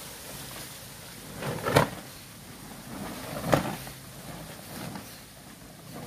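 Two sharp knocks about two seconds apart, each swelling briefly just before it, over a faint steady hiss; weaker thuds follow.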